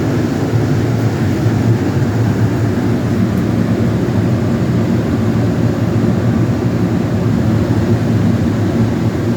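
Steady drone and rush of a walk-in cooler's evaporator fans blowing air through the unit, close by.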